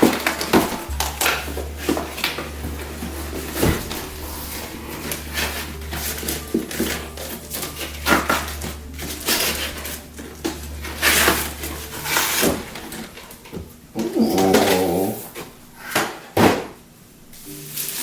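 An aluminium laptop stand being worked out of tight packaging: a run of irregular knocks, scrapes and metallic clatters, with a low hum under the first two-thirds and a short vocal sound near the end.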